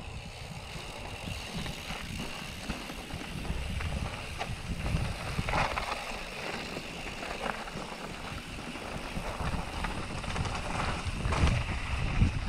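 Mountain bike rolling downhill over wet grass and loose gravel: tyres crunching and the bike rattling over bumps, under a steady low rumble. It gets louder near the end as the pace picks up.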